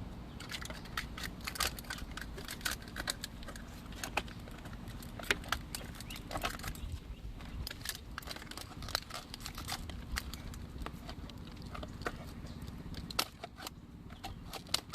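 Irregular clicks, taps and crinkles of slime containers and their taped paper and plastic wrapping being handled and unwrapped, over a steady low hum.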